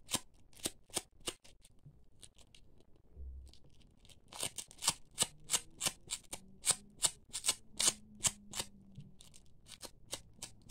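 Hook side of a velcro strip brushed repeatedly across the brushed-wool fur of a crocheted amigurumi dog, raising the fibres upward. It makes a run of short scratchy strokes, about three to four a second, with a pause of a couple of seconds early on.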